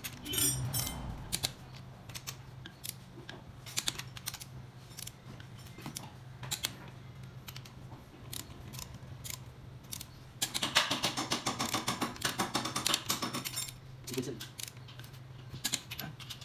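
Ratchet of a click-type torque wrench clicking in scattered strokes as bolts in a Suzuki K6A cylinder head are run down and torqued to 50 pounds, with a quick run of rapid ratchet clicks about two-thirds of the way in. A low steady hum runs underneath.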